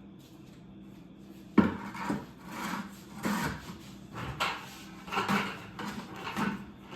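Objects of a makeshift barricade being bumped and scraped as a German shepherd puppy pushes and climbs his way out: a sharp knock about a second and a half in, then a run of irregular knocks and scrapes.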